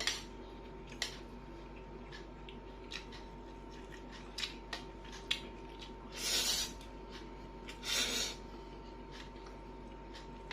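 Close-up eating sounds: chewing, with scattered small clicks and taps, and two short hissing bursts about six and eight seconds in.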